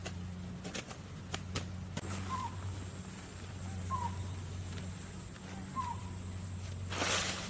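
A bird calls three times, each a short, slightly falling note, spaced evenly about a second and a half apart. A few sharp taps come in the first two seconds, a brief rustle comes near the end, and a steady low hum runs underneath.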